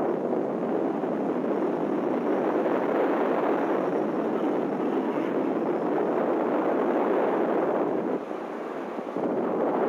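Wind rushing over the microphone of a camera mounted on a hang glider in flight, a steady loud noise that drops briefly for about a second near the end.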